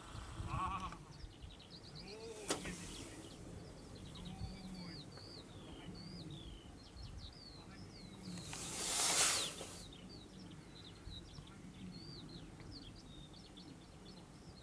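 Small birds chirping over and over across open farmland, with a low wind rumble on the microphone. About nine seconds in there is a loud rushing whoosh lasting over a second.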